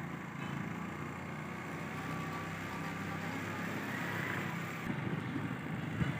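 Street ambience in a narrow city lane, with a motor vehicle engine running steadily under a general hum of traffic noise.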